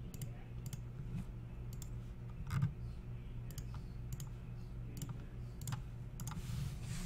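Computer mouse buttons clicking at irregular intervals, about a dozen sharp clicks, over a steady low electrical hum.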